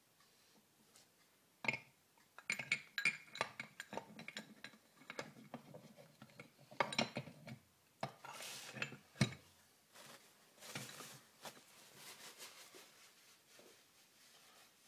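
Steel gears and shaft of an early Shovelhead four-speed gearbox clinking and clicking against each other and the transmission case as they are fitted in by hand: a dense run of sharp metal clicks for several seconds, with a few short scraping sounds later on.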